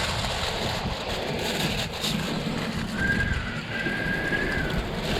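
Lamb offcuts sizzling on a barbecue, a steady hiss over a low rumble of wind. A thin, high steady tone sounds about three seconds in, breaks briefly and carries on for about another second.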